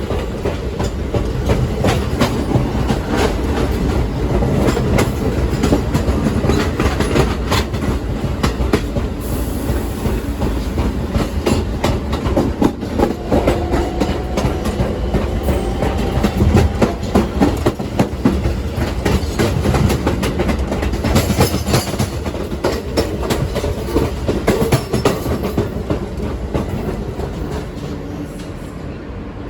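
R160B Siemens subway train running along the track: a steady rumble of wheels on rail, with frequent clicks as the wheels cross rail joints. It eases off slightly near the end.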